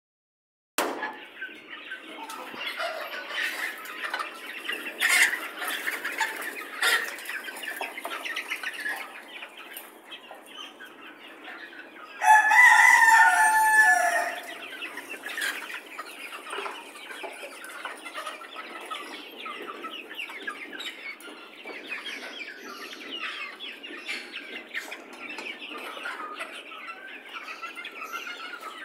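A flock of domestic chickens clucking continuously, with one rooster crowing loudly for about two seconds, about twelve seconds in.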